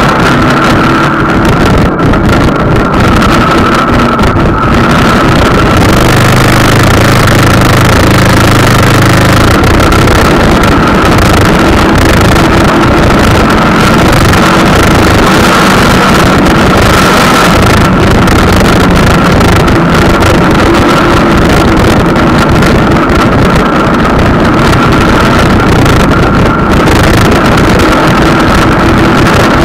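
Motorcycle engine running at road speed under heavy wind rush on the bike-mounted camera's microphone, with a steady high whine throughout.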